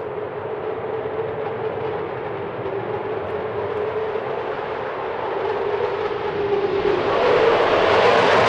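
Eurofighter Typhoon's twin EJ200 jet engines running at take-off power: steady jet noise with a droning note, growing louder near the end.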